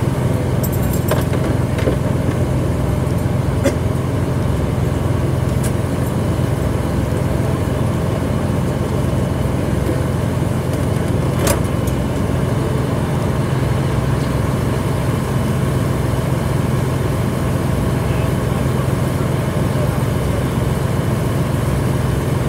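Fire engine running steadily at the fireground, a low, even engine drone, with a few faint clicks.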